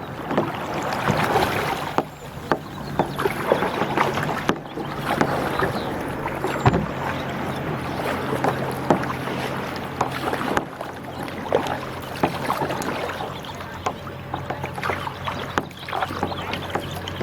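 Water splashing and sloshing around kayaks, with irregular paddle splashes and drips. A low steady hum runs underneath from about three seconds in.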